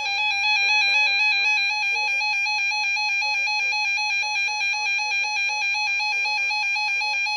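Electronic alert tone warbling rapidly and evenly between two close pitches, loud and buzzy.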